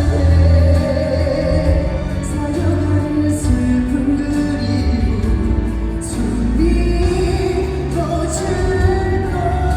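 Live pop ballad: a male singer holding long, sliding notes over band accompaniment with a steady low bass, heard through a large arena's sound system.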